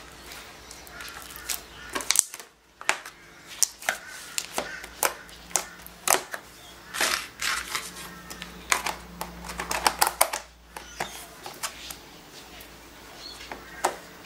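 Hands squeezing, poking and kneading sticky slime, making a run of irregular wet clicks and pops.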